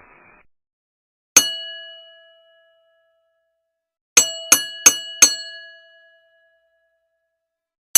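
A small metal bell struck and left to ring: one ding, then four quick dings in a row about three seconds later, and another ding at the very end.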